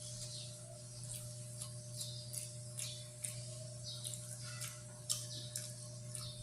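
Close-up chewing and mouth smacking on a bite of kare-kare pork hock: a string of short, irregular clicks and smacks over a steady low electrical hum.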